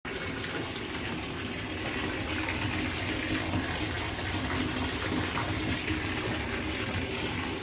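Bath tap running, water pouring steadily into a bathtub.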